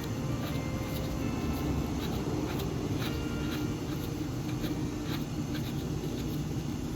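Cub Cadet SLT 1550 lawn tractor running steadily, its engine and mower deck working, with faint irregular ticks over the steady noise.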